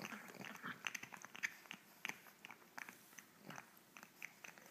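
Pug chewing on a plush Cookie Monster toy's squishy eyeballs: irregular faint chewing clicks, coming thickest in the first second and a half.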